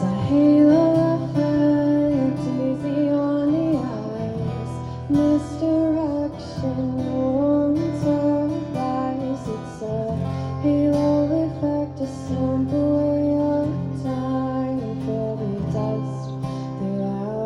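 Live roots-pop band music in an instrumental passage: strummed acoustic guitar, with a melody line that bends and slides above it.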